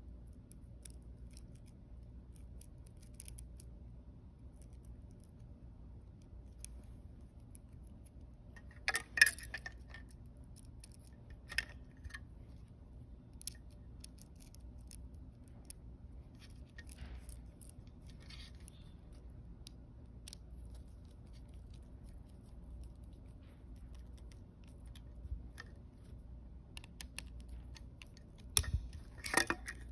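Sparse small clicks and taps of plastic and metal parts being handled and screwed together on a scooter's wig-wag throttle lever, with a louder clatter about nine seconds in, another a little later, and a quick run of clicks and knocks near the end as a screwdriver is worked.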